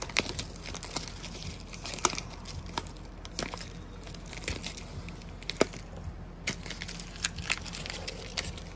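Vinyl car wrap being peeled by hand off a painted wheel-arch panel, the adhesive letting go in an irregular run of sharp crackles and snaps, with the loose film crinkling; the loudest snap comes a little past halfway.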